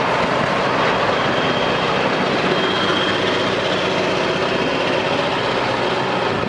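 Scania R620's V8 diesel engine running as the tractor unit drives slowly past and away, holding a steady, even note.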